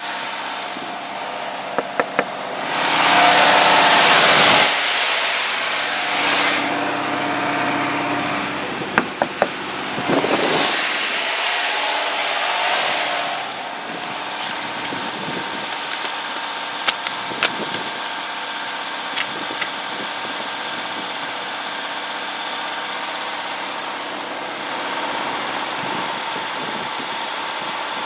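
Car engine idling steadily. Two loud swells of rushing noise come about three and ten seconds in, with a few sharp clicks.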